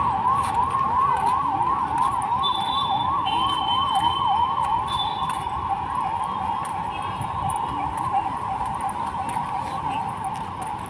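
Electronic emergency-vehicle siren in a fast yelp, each wail rising quickly in pitch and repeating about three times a second, turning into a quicker warble about halfway through.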